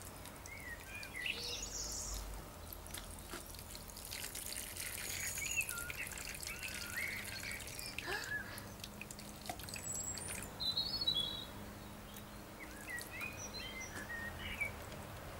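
Water trickling and dripping from a small plastic toy watering can onto soil, with birds chirping and singing in short phrases throughout.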